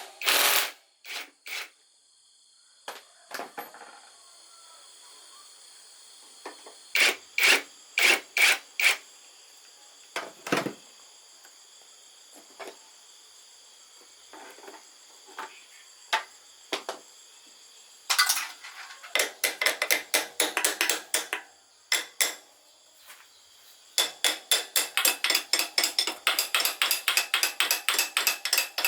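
Hand tools working on motorcycle metal parts: scattered sharp clanks and knocks, then two runs of quick, regular clicking, about four or five a second. A faint, steady high-pitched tone sits underneath.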